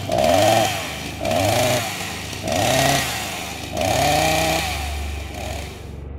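Chainsaw revving in four surges, each rising then falling in pitch, about a second and a quarter apart; it dies away near the end.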